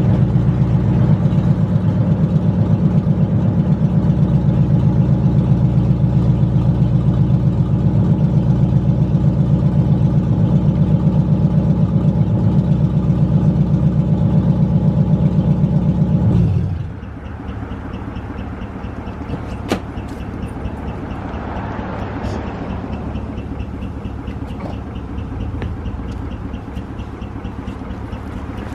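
Car engine idling steadily, then switched off about seventeen seconds in, leaving a quieter steady background with a single sharp click a few seconds later.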